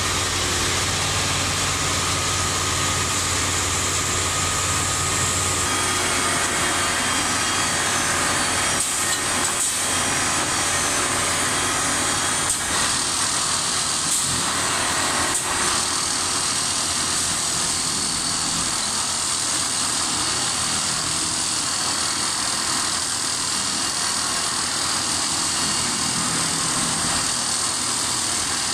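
A 1981 Plasser & Theurer PLM 07-275 switch tamping machine running over a turnout: a steady, loud engine noise, with a few short knocks about a third of the way through and around the middle.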